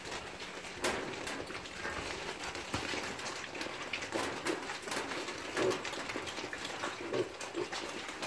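A group of piglets feeding, giving short, low grunts at irregular intervals over a constant rustle with scattered clicks.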